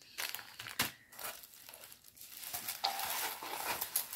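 Thin plastic bags and packaging crinkling and rustling as they are handled and pushed back into a packet: irregular crackles, a sharp click about a second in, and denser rustling near the end.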